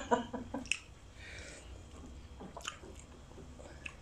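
Faint wet smacks and chewing of someone eating fried fish head with the fingers, with a few short sharp clicks scattered through.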